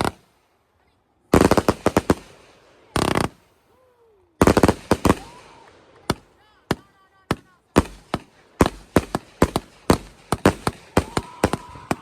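Consumer fireworks going off: clusters of sharp cracks and bangs, then from about two-thirds of the way in a fast run of separate reports, a few a second.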